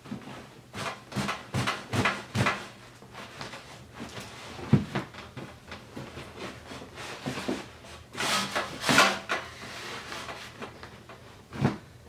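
Rigid seat-back shell of a BMW Z3 M sport seat being pushed and tugged by gloved hands: irregular knocks, scrapes and rattles, with one sharp knock about five seconds in and a longer scraping rush near nine seconds. The panel is stuck fast and does not slide off.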